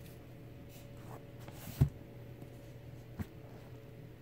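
Rigid cardboard gift box being handled and its lid lifted off: one sharp knock a little under two seconds in, and a lighter tap about a second and a half later.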